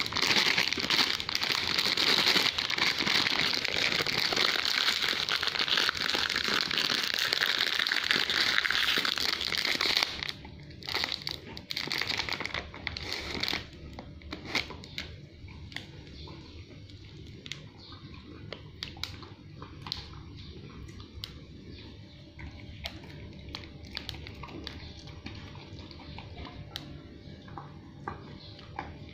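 Plastic Pedigree Dentastix treat packet crinkling loudly and continuously for about ten seconds, then in shorter rustles. It gives way to a quieter stretch of small clicks and crunches as the Samoyed chews a dental stick.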